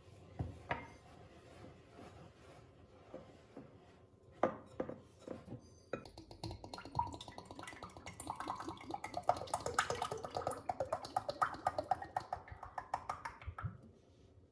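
A utensil stirring rapidly in a mixing bowl of cake batter ingredients, a fast run of rhythmic clinking and scraping from about six seconds in until just before the end. A few separate knocks come before it.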